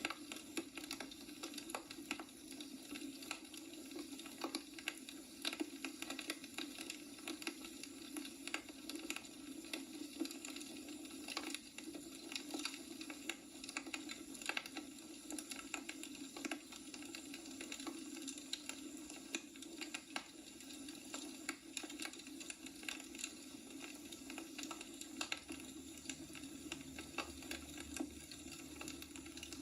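Logs burning in a wood fireplace, crackling with frequent small sharp pops over a steady low hum.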